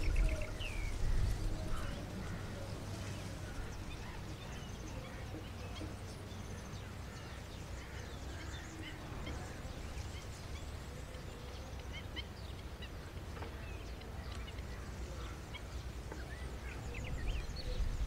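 Faint short bird chirps scattered through a steady low rumble of outdoor background noise.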